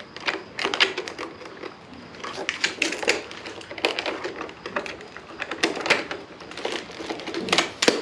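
A rapid, irregular run of clicks and knocks from a Veteran Sherman electric unicycle's telescoping trolley handle, its rods being worked down and pulled back up in their sockets. The handle is sticking and hard to pop up.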